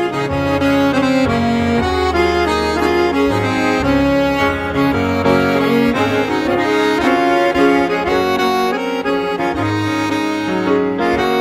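Folk music on accordion: a melody over held chords and shifting bass notes.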